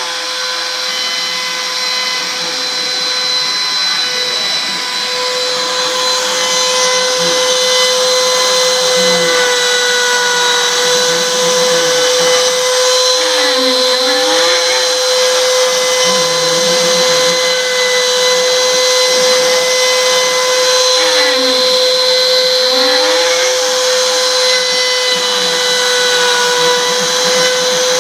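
CNC router spindle running with a steady high whine as the bit cuts a plaque, with short rising and falling motor whirs now and then as the machine moves the bit.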